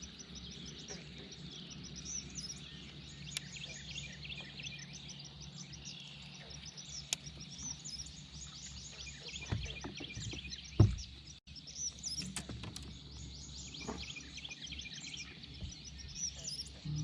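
Birds chirping repeatedly in quick short calls, over a faint steady low hum, with one sharp thump about eleven seconds in.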